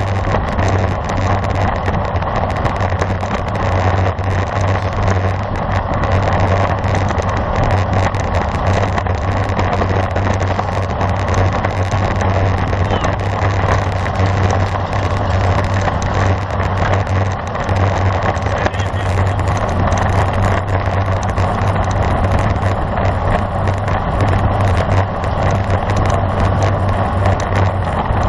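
Steady rushing wind noise on a bicycle-mounted camera's microphone while riding at speed, with a constant low rumble.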